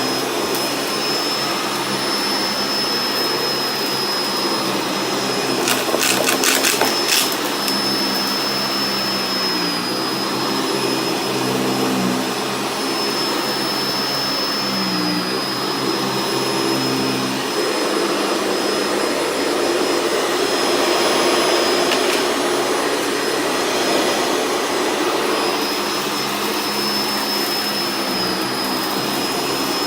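Sanitaire upright vacuum cleaner running on a rug with a steady high whine. It crackles and rattles as grains of rock salt are sucked up, most loudly about six to seven seconds in.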